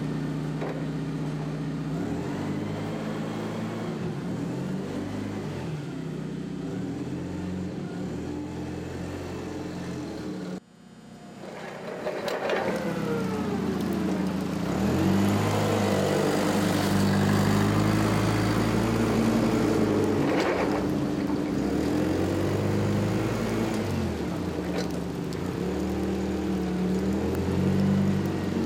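Propane-fuelled Caterpillar forklift's engine running as the truck drives and manoeuvres, its pitch rising and falling with the throttle. The sound cuts out abruptly about ten seconds in, then comes back louder.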